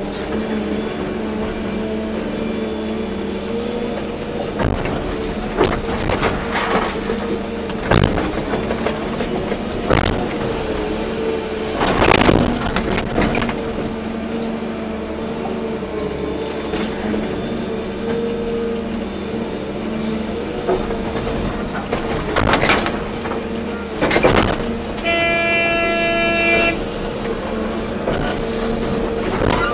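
Volvo EC240B excavator's diesel engine running steadily under load, with several sharp knocks and thuds while it works. Near the end a horn sounds once for about two seconds.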